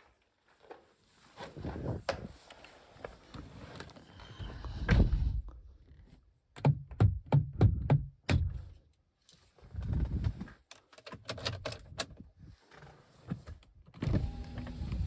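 Hand work on a car door: a run of sharp clicks, knocks and several heavier thuds, with a steady hum starting near the end.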